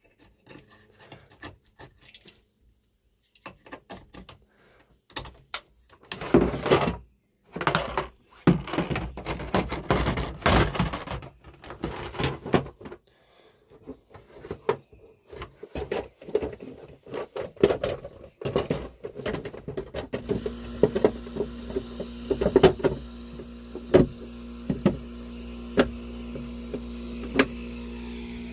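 Hands handling plastic wiring connectors and panels in a personal watercraft's engine bay: scattered clicks and knocks with short pauses. About twenty seconds in, a steady low hum starts and carries on under further sharp clicks.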